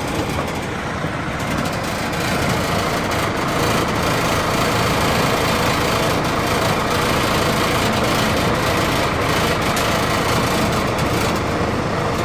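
RV furnace running with a loud, steady noise, which the owner puts down to broken welds inside the furnace.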